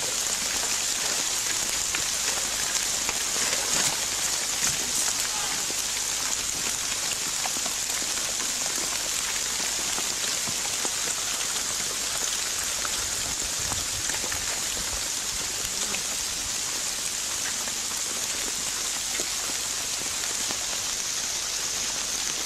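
Steady rain falling: an even hiss sprinkled with many small drop ticks.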